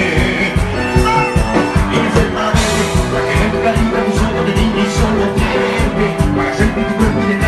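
Live band music played loud through a stage PA, with a fast, steady beat.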